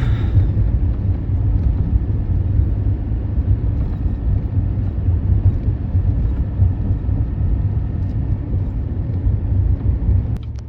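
Steady low rumble of a Chevy 3500 dually pickup truck driving, engine and road noise together; it drops off abruptly near the end.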